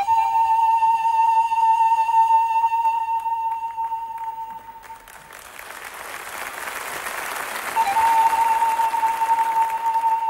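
Panpipes holding one long, steady high note for about five seconds. Applause breaks out when the note stops, and the same long note starts again near the end as the applause dies away.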